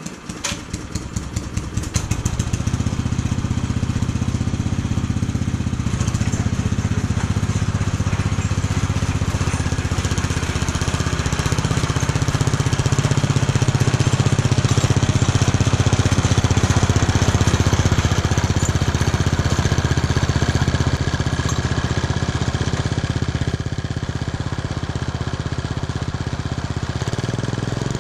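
Garden tractor's small engine running at a steady speed with a fast, even exhaust beat. It comes up to speed over the first couple of seconds.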